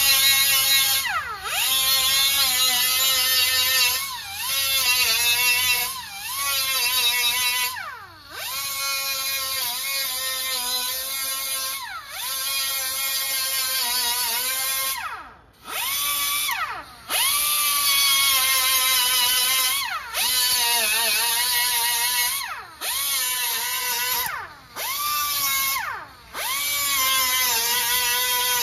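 Pneumatic grinder grinding down weld beads on a steel car rocker panel, a high whine in repeated bursts with short pauses, its pitch dipping each time it is pressed into the metal and rising again as it frees up. The weld is being ground flat, taking off the leftover spatter balls.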